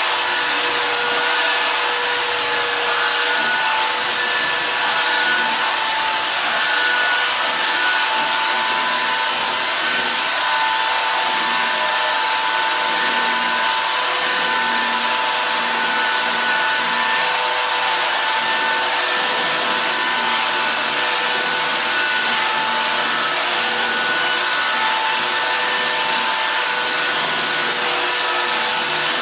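Handheld electric sander running steadily as it sands a wooden plank floor: an even hiss of abrasive on wood with a faint motor whine over it.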